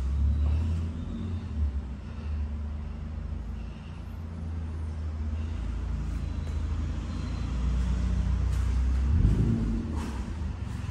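A low, steady rumble, swelling briefly near the end.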